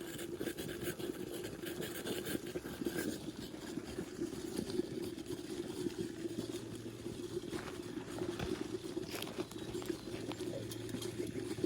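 Kelly Kettle (twig-fired chimney kettle) at the boil: a steady rumbling bubble from the water jacket, with a low steady hum joining about six seconds in.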